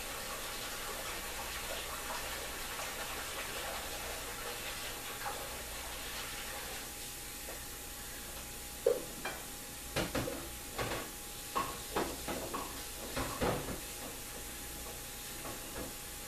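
Water running at a kitchen sink, easing off around the middle. Then a string of sharp clatters and knocks as dishes and pans are handled in the sink.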